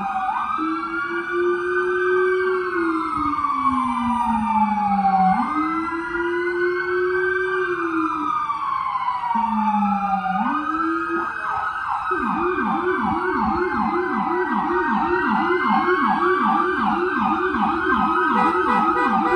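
Two emergency-vehicle sirens sounding together at different pitches, wailing in slow rising and falling sweeps. About twelve seconds in they switch to a fast yelp, rising and falling about three to four times a second.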